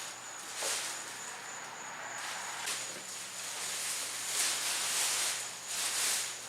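Plastic garbage bags rustling and crinkling as they are handled, in irregular swells every second or two.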